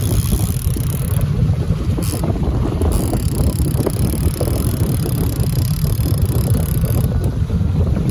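Wind buffeting the microphone aboard a boat, a steady low rumble with no clear engine tone.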